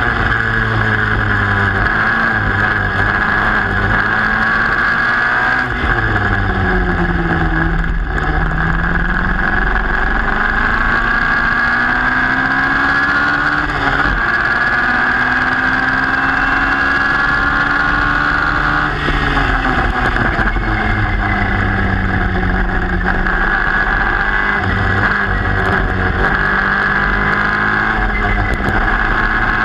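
Formula Junior racing car's engine heard from onboard at racing speed, its revs repeatedly climbing and then dropping sharply as it is driven hard through the gears and corners.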